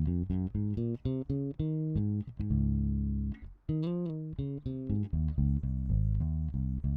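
Alien Audio Constellation four-string electric bass played direct in with no processing, its onboard mid control cut all the way: a run of plucked notes with one longer held note in the middle and a wavering, bent note about four seconds in.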